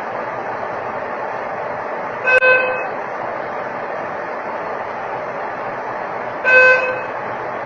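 Steady hiss broken by two short, horn-like pitched beeps, about two seconds in and again near the end, repeating roughly every four seconds.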